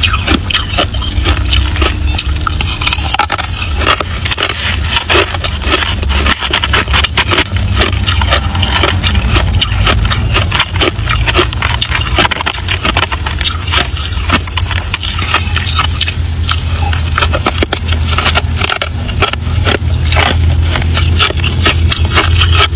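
Hard clear ice being bitten and chewed close to the microphone: a dense, continuous run of crunching and cracking, with fingers scraping through crushed ice in a plastic tub. A steady low hum runs underneath.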